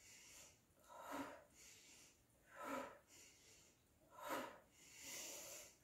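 Rhythmic forced breathing of a yoga breathing drill: sharp breaths in through the nose and out through the lips. Four short breaths come about a second and a half apart, then a longer one near the end.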